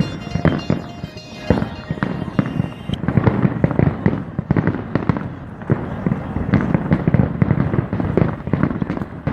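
Fireworks display: a dense, continuous barrage of bangs and crackling bursts, one hard on the next.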